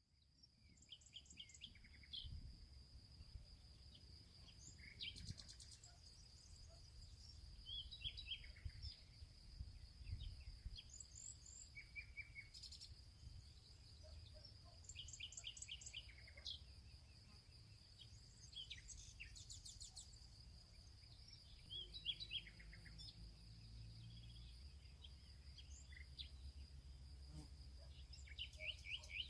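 Faint forest songbirds singing short chirping phrases every few seconds, several birds calling in turn, over a steady high insect buzz and a low rumble.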